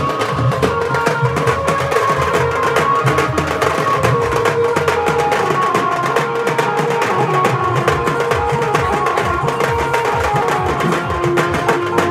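A troupe of large drums beaten fast with sticks, many dense strokes without a break, with a held melody line stepping between notes above them.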